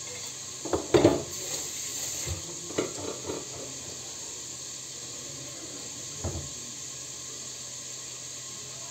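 Meat sizzling steadily as it fries in oil in a pot on the stove, with a few knocks and clinks of kitchenware about a second in, near three seconds and around six seconds.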